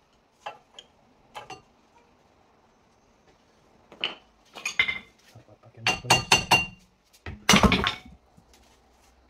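Metal clinks and rattles of a car's front brake pad and caliper being handled and worked loose, with a few sharp ringing clinks in the middle and a louder knock near the end.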